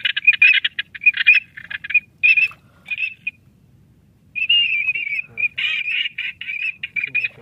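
Ducks calling in quick, chattering runs of high notes that stop for about a second midway, then start again.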